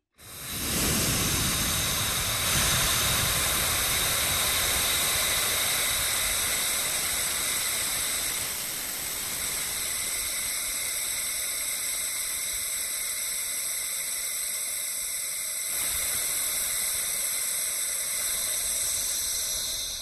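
Air rushing back into an evacuated vacuum chamber through its release valve: a loud, steady hiss that starts abruptly, heard from a recorder sitting inside the chamber.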